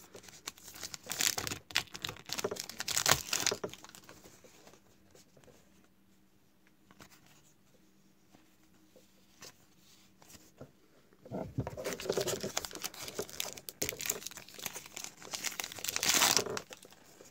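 Topps WWE Heritage trading card pack wrappers being torn open and crinkled, in two spells: over the first few seconds and again from about eleven seconds in, loudest near the end. In between it goes quiet while the cards are handled.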